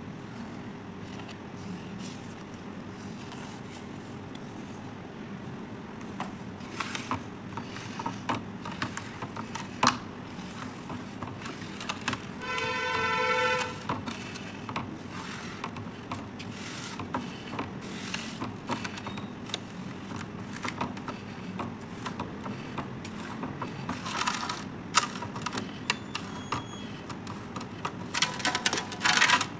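Thick paste of powder colour and sand being squished by hand and scraped across a steel basin, giving scattered wet scrapes and clicks in two busy spells. A horn-like tone sounds once for about a second and a half, a little under halfway through, over a steady low background hum.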